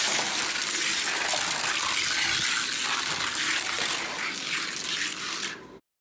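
Two Hot Wheels die-cast stock cars, a Ford Thunderbird Stocker and a Chevy Monte Carlo, rolling at speed down a long gravity race track: a steady rushing hiss of small wheels on the track that cuts off suddenly near the end.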